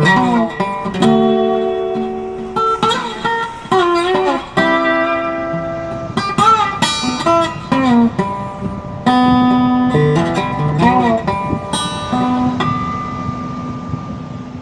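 Instrumental background music: a plucked-string melody, likely guitar, with some sliding, bent notes. It ends on a held note that fades out near the end.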